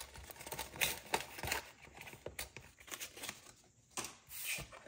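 Paper and plastic inserts of a budgeting binder being handled: crinkling and rustling with scattered light taps and clicks.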